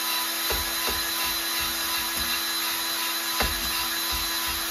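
Cordless drill spinning a small cylinder hone in the bore of a 1943 Gravely Model L engine cylinder, the stones grinding steadily against the wall with WD-40 as lubricant. A few low knocks come as the hone is worked up and down. The honing puts a crosshatch pattern on the cylinder wall for new piston rings.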